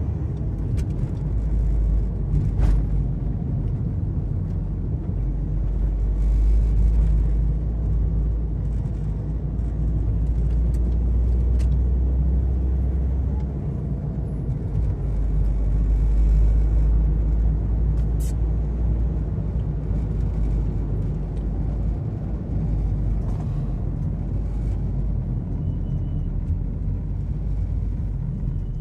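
Steady low rumble of a moving car heard from inside the cabin: engine and road noise, with a few faint clicks.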